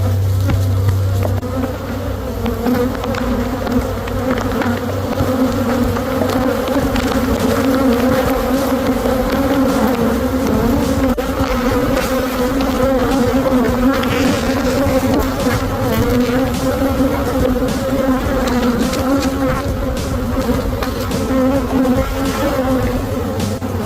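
Honey bees from an open hive buzzing loudly and steadily, a dense hum that wavers slightly in pitch.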